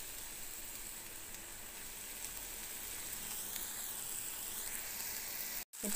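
Onion, apple pieces and cashews frying in oil in a kadai, a steady gentle sizzle, with a brief dropout near the end.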